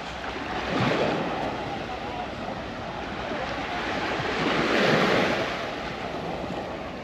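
Small waves of a calm sea washing onto the beach: a steady hiss that swells twice, about a second in and again around five seconds in.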